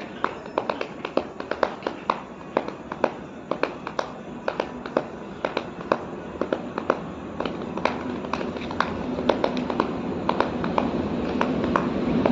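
Body percussion imitating a train: sharp hand strikes in a chugging rhythm, about three a second at first and closer together later, like wheels clacking over rail joints. A rumbling noise builds steadily louder underneath, like the train speeding up.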